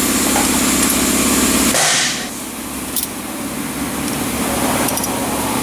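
A steady mechanical hum of machinery running, broken about two seconds in by a brief loud hiss, then going on more quietly with a couple of faint clicks.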